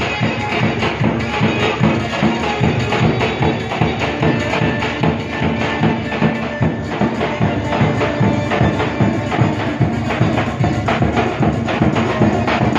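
Lively dance music with a fast, steady drum beat of about four strokes a second under a sustained melody.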